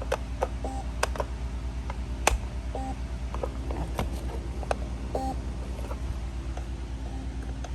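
Kidde P4010ACS smoke alarm giving three short, low beeps a couple of seconds apart after being powered on, with scattered sharp clicks over a steady low hum.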